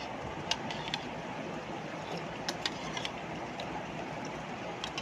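A metal utensil clicking against a plastic bowl several times during eating, over a steady background noise.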